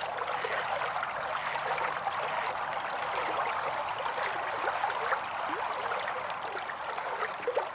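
Water flowing steadily under a wooden bridge, an even rush with many small gurgles and trickles through it.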